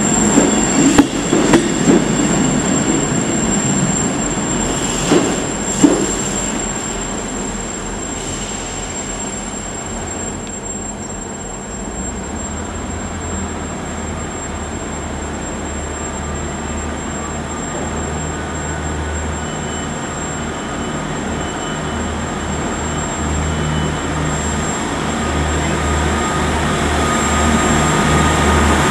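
Diesel multiple-unit trains: wheels click over rail joints a few times in the first six seconds. From about twelve seconds in, the low steady drone of Class 158 diesel engines takes over and grows louder near the end.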